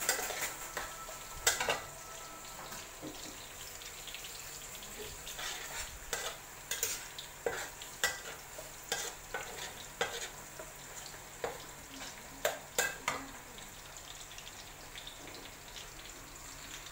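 Minced garlic sizzling in hot oil in a wok: a steady hiss broken by frequent sharp crackles and clicks, busiest in the middle stretch.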